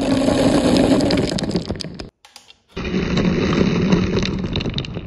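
Many marbles rolling and clattering together along a marble-run track, a dense rumble with lots of small clicks. It breaks off for about half a second around two seconds in, then carries on.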